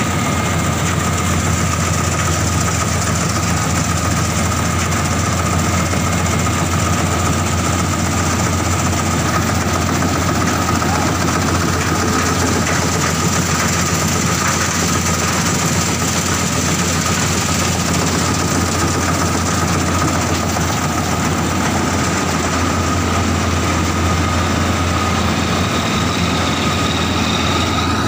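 Diesel combine harvester running at work cutting wheat: a loud, steady engine drone with a constant high whine over it.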